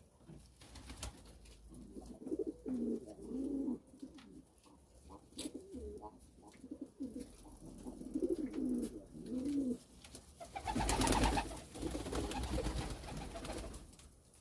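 Domestic pigeons cooing: a run of low, warbling coos that rise and fall in pitch. About ten seconds in comes a loud rustling noise lasting a few seconds.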